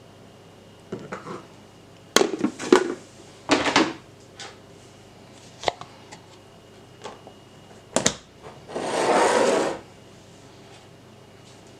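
Drinking glasses handled on a kitchen countertop: a string of short knocks and clinks as they are set down and moved. About nine seconds in comes a louder rushing noise lasting about a second.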